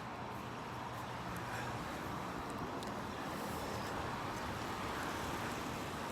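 Steady background noise with a faint low hum and no distinct event.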